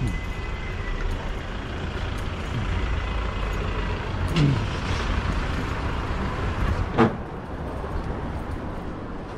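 Street traffic passing close: a heavy vehicle's engine rumble that eases off about seven seconds in. Two sharp knocks break through, the louder one about seven seconds in.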